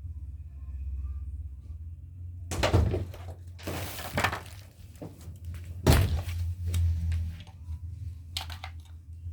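Hard objects being handled close to the microphone: a few loud clatters and knocks about a third of the way in and again past the middle, then several sharp clicks near the end, over a low rumble.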